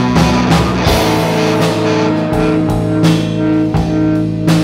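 Live rock band playing: electric guitar through a Vox amplifier over bass guitar and drum kit, with sustained guitar chords and evenly spaced drum hits.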